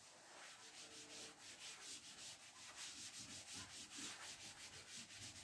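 A cloth wiping chalk off a blackboard: quick back-and-forth strokes, about five a second, a faint rhythmic rubbing hiss.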